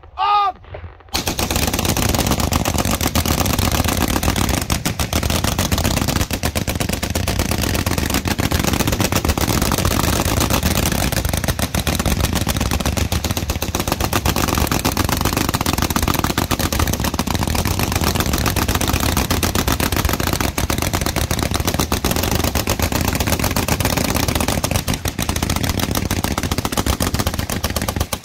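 Sixteen water-cooled .303 Vickers machine guns firing together in one long burst of continuous, overlapping automatic fire. The fire starts about a second in and cuts off suddenly just before the end.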